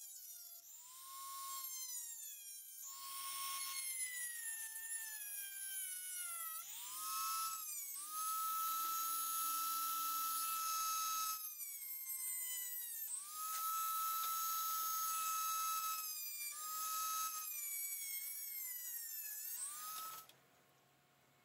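High-speed rotary tool with a thin abrasive cut-off wheel cutting into a metal ring held in a vise. Its high whine sags in pitch each time the wheel bites into the metal and climbs back to a steady pitch when it runs free, several times over, then stops shortly before the end.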